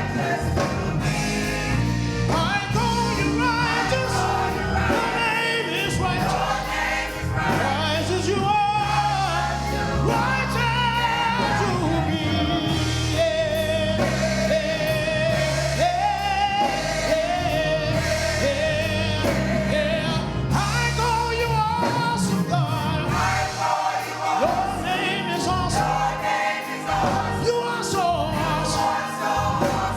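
Gospel choir singing with instrumental accompaniment: bass, keyboard and drums.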